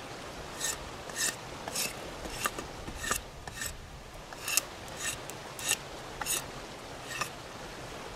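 A large sawback knife blade scraping down a wet stick, about a dozen quick strokes roughly one every half second with a short pause midway, stripping off the wet outer wood to reach dry wood that will take a flame.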